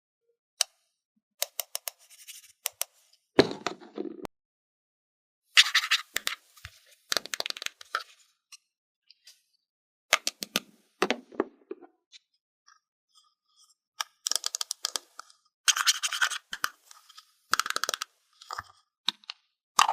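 Small plastic toy picnic pieces and their packaging being handled: clusters of light clicks and taps, with several bursts of scraping and rustling.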